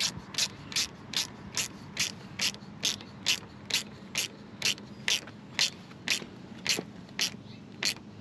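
Ratchet wrench clicking steadily, about two clicks a second, as it swings back and forth tightening a 6 mm hex bolt on a motorcycle bar-end lever guard.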